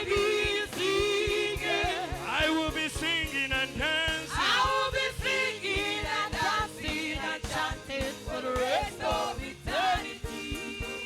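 Live gospel praise music: several voices singing with vibrato over a band with a steady drum beat. Near the end the singing stops and only held instrumental chords carry on.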